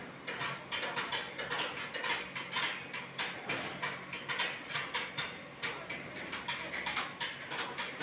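Rapid, irregular mechanical clicking and clattering, several clicks a second, over a faint low steady hum.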